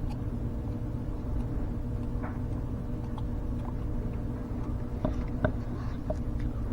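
Smoke machine's small air pump running with a steady low hum, pushing smoke into the EVAP system to pressurize the fuel tank. A few light clicks about five seconds in.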